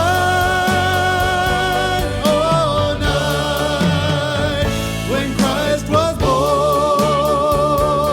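A song: one singing voice holding long notes with vibrato over a band accompaniment with a steady beat.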